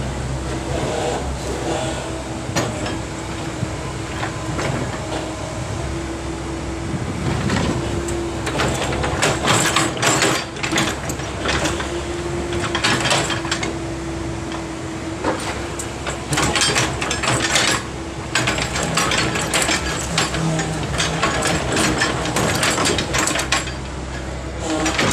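Backhoe running with a steady engine hum and a held whine, and from about a third of the way in, repeated metal clanks and knocks from the machine working.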